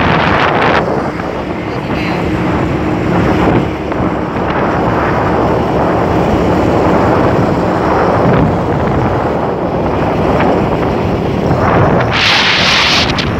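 Wind buffeting the microphone of a camera carried on a moving vehicle, a steady loud rush over the low rumble of road traffic. About twelve seconds in, a brighter, louder rush of hiss lasts about a second.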